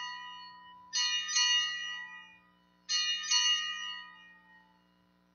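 Altar bells rung at the elevation of the consecrated host. A ring is fading at the start, then come two more rings about two seconds apart, each struck twice in quick succession and ringing out over a second or two.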